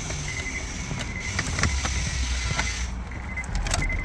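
Plastic wiring-harness connectors being unplugged from the back of a car radio: a handful of short, sharp clicks and rattles over a steady low hum.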